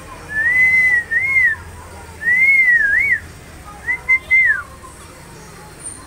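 Cockatiel whistling: three loud, clear whistled phrases of arching notes that rise and fall.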